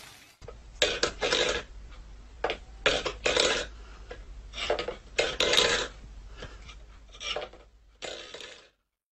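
Cat pawing a stainless steel food bowl on a wooden floor: the bowl clatters and scrapes in about eight short bursts, some with sharp clinks.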